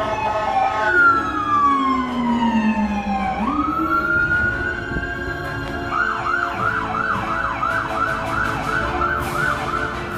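Emergency vehicle siren: a long wail that falls slowly, sweeps back up and holds, then about six seconds in switches to a fast yelp of roughly three to four rises a second.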